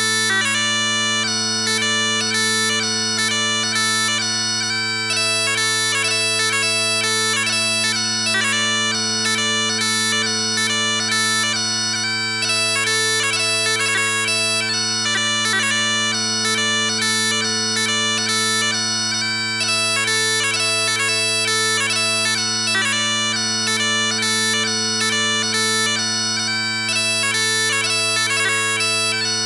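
Blair Digital Chanter playing its Highland bagpipe sound, tuned to 440 Hz: a steady low drone under a chanter melody with quick grace-note ornaments.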